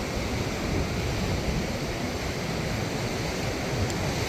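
Ocean surf washing on a beach, a steady rushing noise, with wind rumbling on the microphone.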